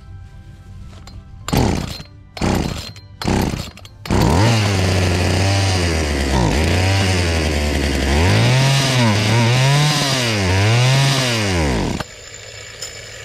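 Poulan Wild Thing 2375 two-stroke chainsaw engine, freshly fitted with a new cylinder and piston, pull-started: a few quick pulls of the starter cord, then it catches and runs. It runs steadily for a few seconds, is revved up and down three times, then cuts off suddenly.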